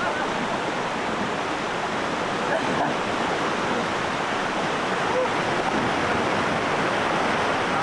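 Fast, shallow river water rushing over rapids, a loud, steady, even roar of whitewater.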